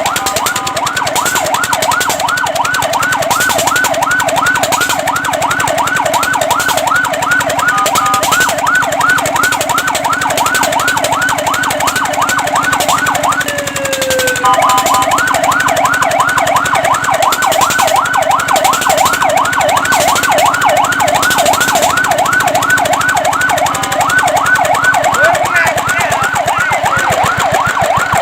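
Fire truck's electronic siren on a rapid yelp, its pitch sweeping up and down about four times a second, with a brief break and a falling tone about halfway through.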